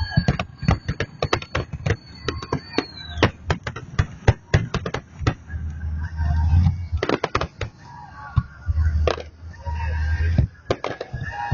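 Fireworks salute going off: a rapid run of sharp crackling bangs, then fewer, deeper booms about six and nine seconds in. A thin high whistle sounds over the first three seconds.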